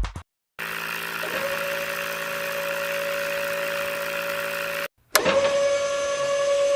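Small DC electric motor of a homemade drilling rig running with a steady whine over a mechanical hiss. It cuts off about five seconds in and starts again, the whine climbing quickly to the same steady pitch.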